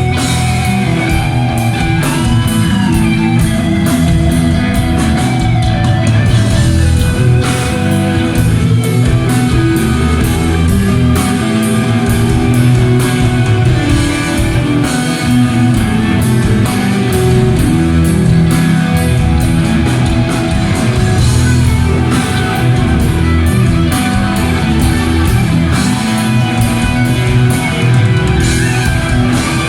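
A heavy metal band playing live, with distorted electric guitar over bass and a driving drum beat.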